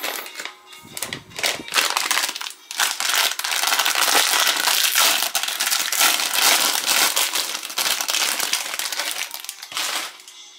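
Crinkly plastic wrapper of a packaged croissant being pulled open and crumpled by hand. Scattered crackles build into a dense, loud run of crinkling about two and a half seconds in, which stops shortly before the end.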